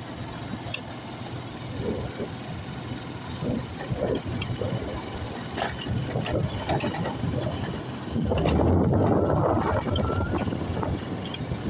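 Vehicle engine running at a steady low hum while driving along a dirt road, with scattered clicks and rattles. A louder rush of noise swells for about a second and a half near the two-thirds mark.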